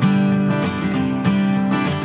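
Background music: a strummed acoustic guitar with a steady beat.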